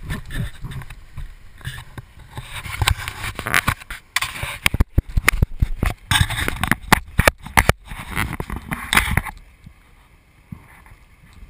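Sea water splashing and rushing along the side of an inflatable boat and against a camera held low over the surface, with a run of sharp knocks and bumps in the middle. It quietens sharply about two seconds before the end.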